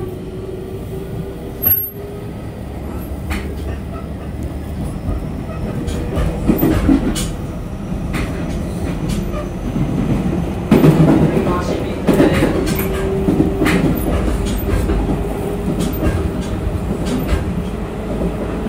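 Running sound of a JR 313 series electric train on the Tokaido Line, heard on board: a steady hum over a rumble, with wheels clicking over rail joints. The noise grows louder from about six seconds in and is loudest about eleven seconds in.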